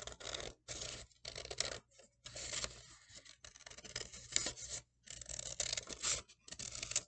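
Scissors cutting through folded red construction paper: a run of cutting strokes with short pauses between them.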